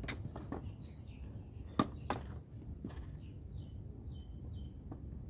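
Scattered clicks and taps of a spanner working on the bar nut of an electric chainsaw while its chain is tensioned; the sharpest click comes about two seconds in. A low steady hum runs underneath, and a few short high chirps come near the end.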